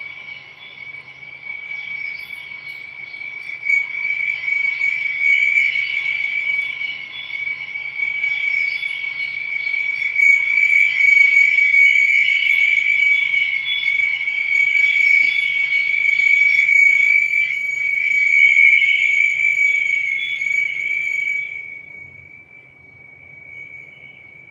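Crickets trilling steadily and high-pitched, with a louder, rougher layer of chirring that swells and then drops away near the end.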